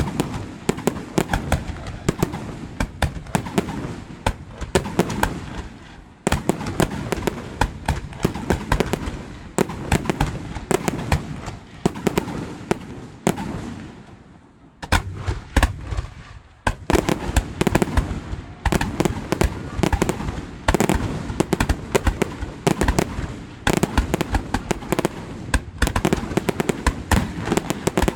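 Aerial fireworks display going off: a dense, rapid string of bangs and crackles, with a brief lull about halfway through before the barrage resumes.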